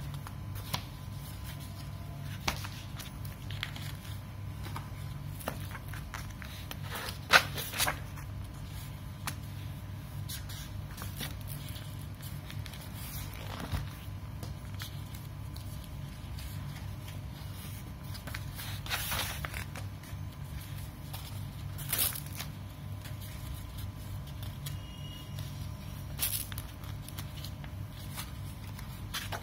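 Heavy pages of a wallpaper sample book being turned and handled: scattered short paper rustles and scrapes, the loudest about seven seconds in, over a steady low hum.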